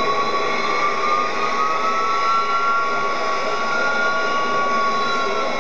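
Airbus A300B4-203's General Electric CF6-50 turbofan engines running at taxi power: a steady rushing sound with a high engine whine, one tone rising slightly about a second in and easing back down near the end.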